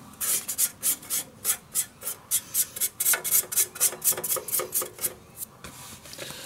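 A hand rubs back and forth over the grimy cover plate of a Briggs & Stratton Twin 18 I/C lawn-tractor engine. The quick scraping strokes come about four a second and stop shortly before the end.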